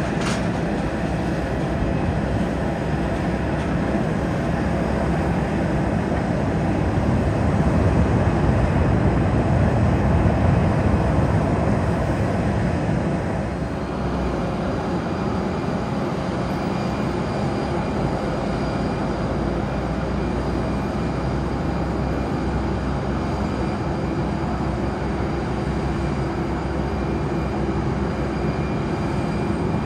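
Jet airliner engines running, a steady deep noise with a faint high whine, swelling a little and then easing slightly about halfway through.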